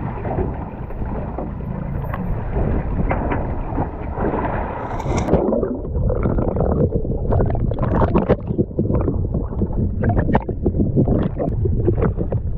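Wind and water noise over a steady low rumble. About five seconds in, the sound turns muffled and underwater: water sloshing and bubbling with many small clicks and knocks.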